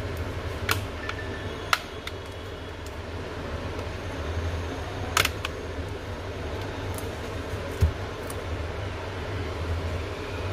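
Plastic back cover of a Samsung tablet being pried off, its clips letting go in a few sharp clicks, with a short thump near the end, over a steady low hum.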